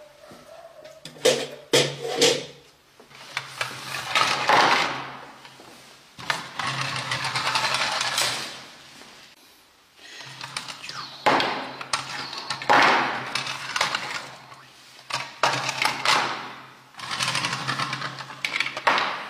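Plastic toys being handled and moved around on a hard tabletop: repeated bouts of clicking and scraping, each swelling and fading over a second or two, with brief quiet gaps between.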